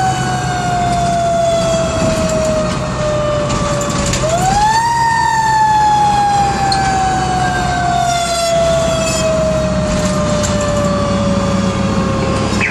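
Fire engine siren heard from inside the cab, its pitch falling slowly, pushed quickly back up once about four seconds in, then falling slowly again, with the truck's engine running underneath.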